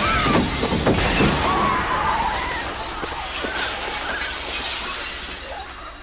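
Window glass cracking and shattering as pigeons crash into the panes, a dense clatter of breaking glass that is loudest at the start and slowly dies down.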